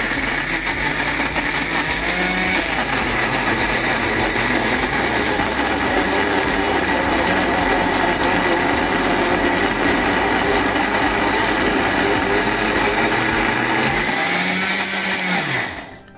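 Electric blender with a steel jar running steadily, grinding boneless chicken with bread crumbs and spices into a mince. Near the end it is switched off, its pitch falling away as the motor stops.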